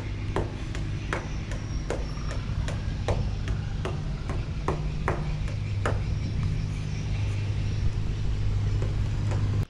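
An engine runs with a steady low hum, while sharp knocks like hammer blows come irregularly, about one or two a second.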